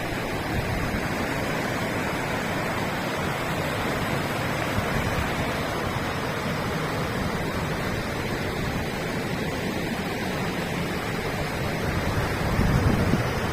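Steady rush of flowing river water, an even hiss with no let-up. Near the end a brief low rumble swells in, like wind on the microphone.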